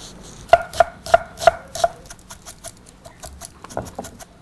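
Chef's knife chopping an onion half on a wooden cutting board: a run of sharp knocks of the blade against the board, about three a second, then lighter and quicker taps in the second half.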